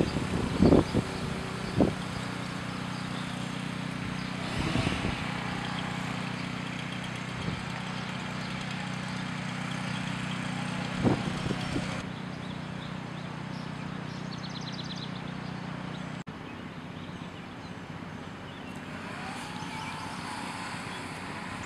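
A motor running steadily with a low hum, broken by a few short knocks and thumps.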